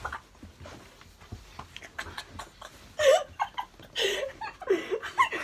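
A young man laughing in several short bursts, his pitch bending up and down, starting about three seconds in after a quieter stretch.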